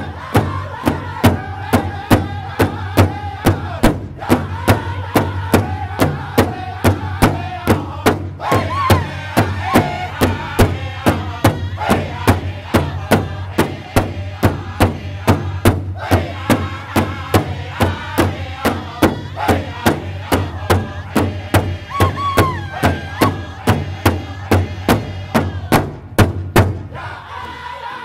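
Powwow drum group singing a contest song live: several high voices singing together over a steady beat on a shared powwow drum, about three beats a second, with brief breaks in the beat now and then.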